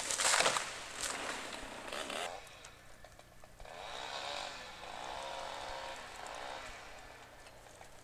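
Crackling and crunching of brush for the first couple of seconds. Then a chainsaw runs at a distance, its pitch rising and falling in several long sweeps.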